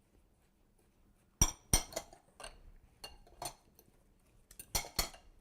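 A utensil clinking and knocking against a mixing bowl while a thick walnut and brown sugar filling is stirred: a few sharp knocks about a second and a half in, softer taps after, and two more knocks near the end.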